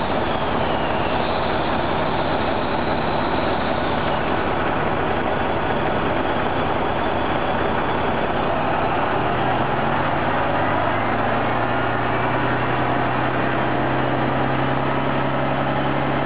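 Bogie of a Brossel ES401 catenary-maintenance railcar running along the track, heard right beside the wheels: steady wheel-on-rail and running-gear noise. A low steady hum comes in about nine seconds in.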